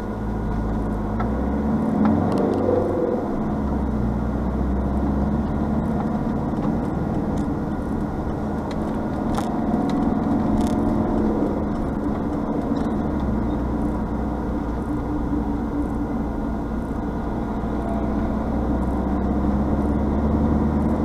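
Vehicle engine and tyre noise heard from inside the cab as it pulls out of a roundabout and gathers speed on the open road. The engine note rises about two seconds in, and its deep drone fades for a stretch before building again in the second half.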